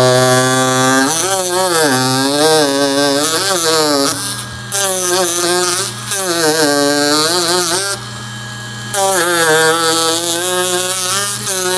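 Ryobi 4-volt cordless power carver running with its gouge chisel cutting into pine, its motor whine dipping and rising in pitch as the blade takes load. It drops away briefly a little after four seconds and again at six seconds, then goes quieter for about a second near eight seconds before resuming.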